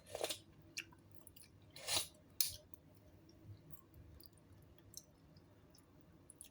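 A person eating: three short eating noises, one near the start and two around two seconds in, with light clicks scattered between them.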